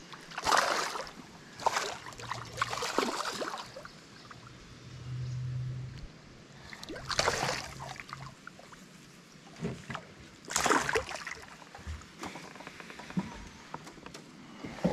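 A hooked largemouth bass splashing at the water's surface in several short bursts as it is fought to the boat.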